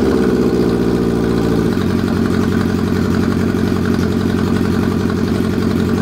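Honda CB750's inline-four engine idling just after starting, through exhaust pipes fitted with home-made baffle inserts and no mufflers; the idle shifts slightly a little under two seconds in.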